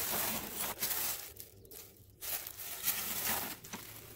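Thin plastic garbage bag crinkling and rustling as it is grabbed and pulled out, in two bouts with a short pause between.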